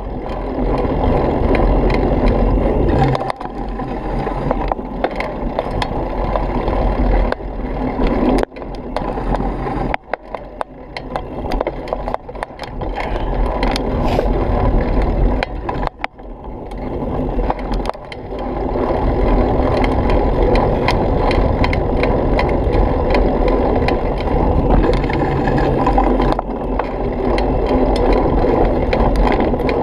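Mountain bike rolling fast over a dirt trail: steady tyre noise on dirt and gravel, with the bike's parts rattling and clicking over the bumps. The noise drops briefly several times.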